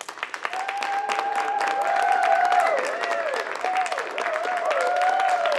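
Audience applauding, with several long cheering calls from the audience over the clapping.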